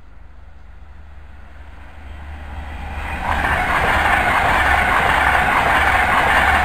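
Class 390 Pendolino electric train approaching and passing through a station without stopping. It is faint at first, builds over the first three seconds, then becomes a loud steady rush with a rhythmic clatter of wheels over the rails.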